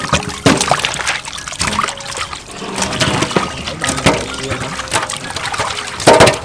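Water sloshing and dripping as peeled corn cobs are rinsed by hand in a metal basin, with short knocks as wet cobs are dropped into a metal bowl; the loudest knock comes about six seconds in.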